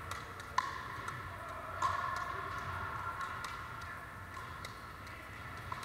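Pickleball rally: paddles popping against the plastic ball and the ball bouncing on the wooden gym floor, echoing in the hall. Two sharp, loud pops early on, then lighter taps about a second apart.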